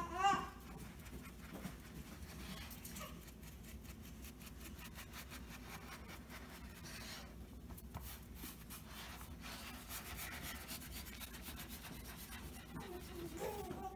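Faint rubbing and soft scraping of fingers pressing sweet pastry dough into the angle of a metal flan mold, over a low steady hum.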